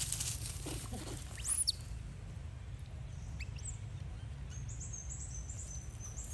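High-pitched animal chirps and squeaks over a steady low rumble. The loudest is a sharp rising-and-falling whistle about a second and a half in, and a quick run of short squeaks follows near the end.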